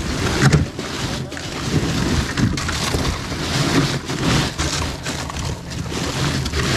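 Boat noise with wind buffeting the microphone, and bags of ice being shifted and crinkled by hand inside a fish box.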